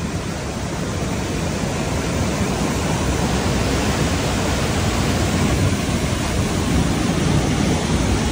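Mountain stream and waterfall rushing across a road in a steady torrent of white water, growing gradually louder.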